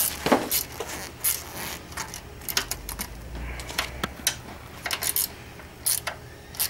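Hand ratchet with an extension and Allen bit clicking in short irregular strokes, tightening the fairing's fork-tube clamp bolts.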